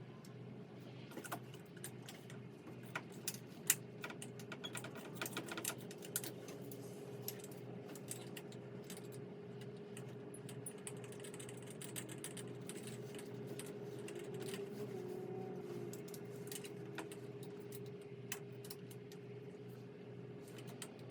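Scattered light clicks and small rattles, busiest in the first few seconds, over a steady hum.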